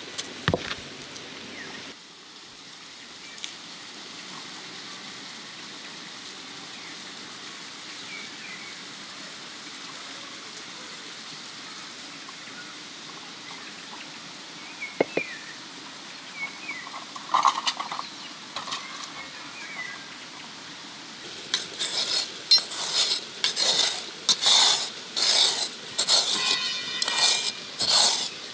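A steady background hiss with a few short bird chirps, then about two-thirds of the way in a utensil starts clinking and scraping in a metal bowl or pot, about two strokes a second, as when mixing food.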